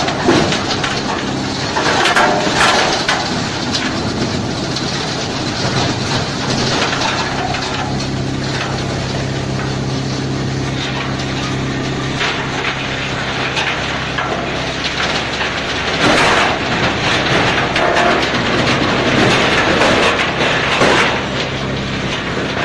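Tub-type tree root shredder running under load, with a steady low machine hum under continuous crushing and splintering of wood and irregular cracks. The crushing grows louder about two seconds in and again for several seconds near the end.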